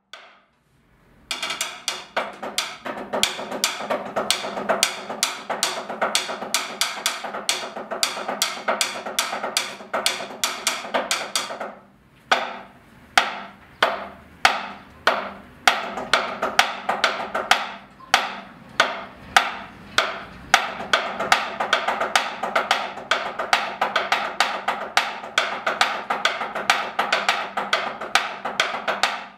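Drumsticks played on a rubber drum practice pad: fast, even strokes and rolls that thin out to spaced single hits about twelve seconds in, then pick up again into dense strokes.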